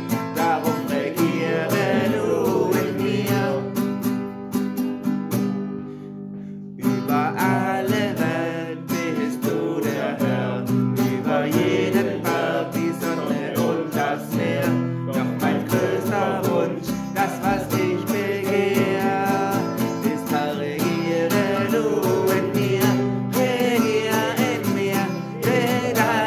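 A man singing a German worship song in a steady, even rhythm to his own acoustic guitar chords. The voice and guitar fall away briefly at about six seconds in, then carry on.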